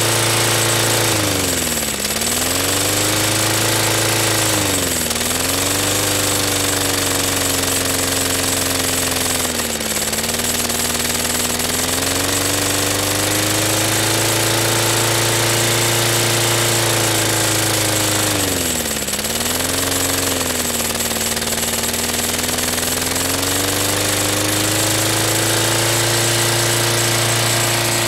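Small single-cylinder lawn mower engine running on gasoline vapor drawn through a hose from a jar bubbler vaporizer. Its speed sags and recovers four times, about two, five, ten and nineteen seconds in, and otherwise holds steady.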